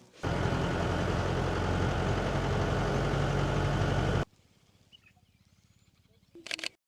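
Safari jeep's engine running with a steady rumble and road and wind noise, cut off abruptly after about four seconds. A quieter outdoor stretch follows, with a few faint chirps and a short louder burst near the end.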